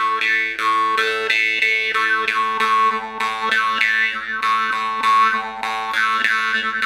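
Babayev jaw harp in A, plucked in a quick steady rhythm: a constant drone with a melody of overtones shifting above it as the mouth changes shape.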